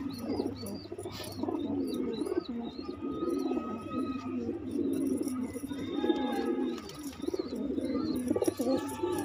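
A flock of Madrasi fancy pigeons cooing, many low coos overlapping without a break.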